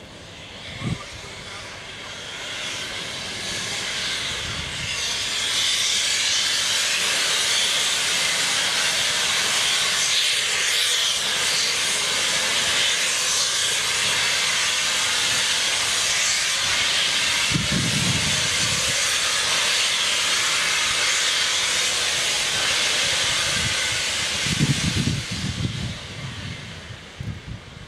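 A steam locomotive's open cylinder drain cocks hissing steadily as it moves off slowly. The hiss builds over the first few seconds and fades near the end, with a brief low rumble twice.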